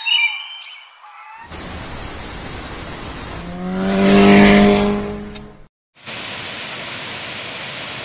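A few bird chirps fade out, then a motorcycle passes close by on a road, its engine swelling to the loudest point about halfway through and fading away. After a brief cut, a steady hiss of TV static.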